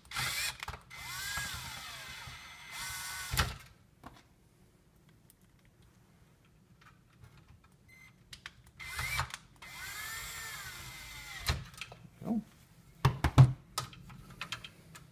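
Cordless drill/driver driving two screws into a sheet-metal power-supply box: two separate runs of motor whine, each rising and then falling in pitch. A few sharp clunks follow near the end.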